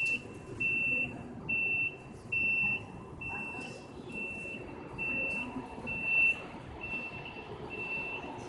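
A high electronic beep repeating evenly about once a second, each beep about half a second long, getting fainter in the second half. Steady background noise runs underneath.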